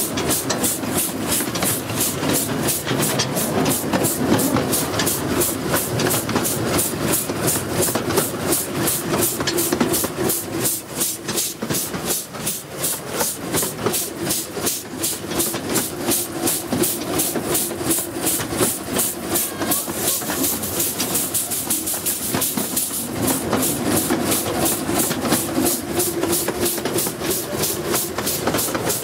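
A 15-inch gauge miniature steam locomotive running along the line, heard from the coach behind it: a rapid, regular beat and steam hissing over the steady rumble of wheels on rail. The hiss grows stronger for a few seconds about twenty seconds in.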